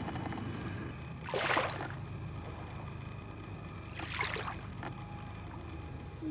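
Small waves lapping and washing up a sandy lakeshore, two short splashes over a steady low rumble.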